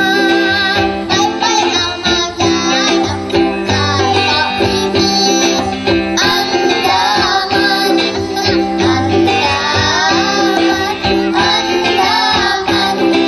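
Live band playing a song: strummed acoustic guitar over drums and keyboard, with a voice singing.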